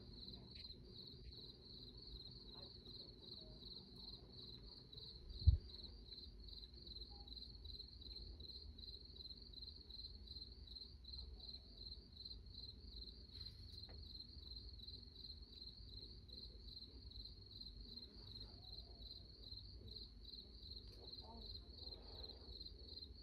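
Crickets chirping steadily in a rapid, even pulsing, with a single low thump about five and a half seconds in.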